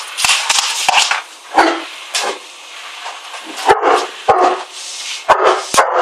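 A dog barking again and again in short bunches, over the steady noise of a canister vacuum cleaner running.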